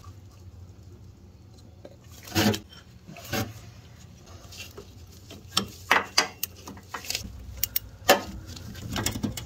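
Scattered metallic clinks and knocks of hand tools and steel parts being handled, irregular sharp clicks with louder knocks about two and a half, six and eight seconds in.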